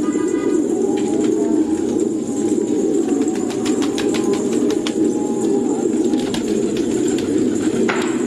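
A flock of fancy pigeons cooing together in a steady low murmur, with wings flapping and clapping in a quick run of sharp flaps in the middle as birds take off and land.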